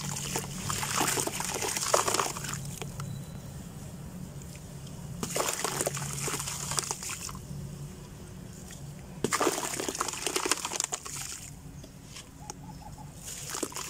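Crumbly dry dirt blocks being broken apart by hand, the powder and crumbs pouring and pattering into a tub of water. It comes in bursts of two to three seconds with short lulls between, and a fresh burst starts near the end.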